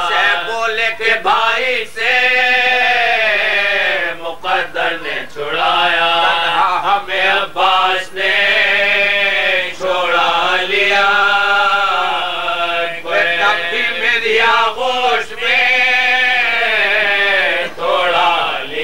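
Male voices chanting an Urdu marsiya, a lament recited to a slow melody in long drawn-out phrases with short breaks between them.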